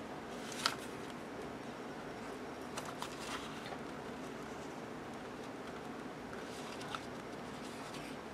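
Clear plastic sticker sheets and their paper interleaves handled and turned: soft rustling with a few crisp crackles, the loudest about a second in and smaller ones around three and seven seconds.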